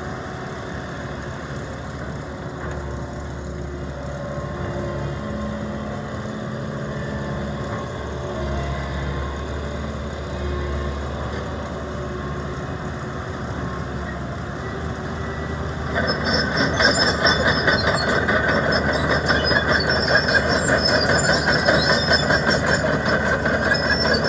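Komatsu PC190LC-8 hydraulic excavator running, its diesel engine note shifting in pitch as the machine works. About two-thirds of the way through, a louder rattling clatter with high squealing sets in and continues.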